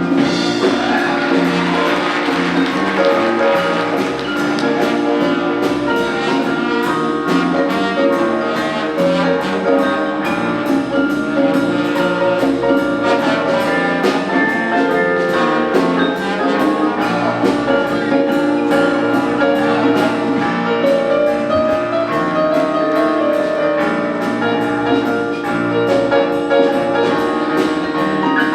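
Big band jazz ensemble playing: brass with trumpets over drum kit and rhythm section, a steady beat throughout.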